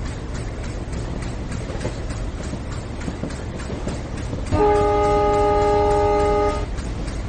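Train running on the rails with a steady low rumble and faint wheel clicks; about four and a half seconds in, the locomotive's horn sounds one steady blast of about two seconds, several tones at once, then cuts off.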